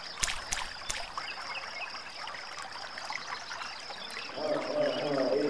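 Water trickling and sloshing, with a few sharp splashes in the first second. Near the end a voice begins chanting.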